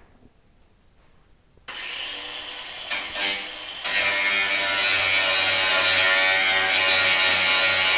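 Handheld power tool working on metal. It starts about two seconds in, falters briefly, then runs steadily and louder from about four seconds on.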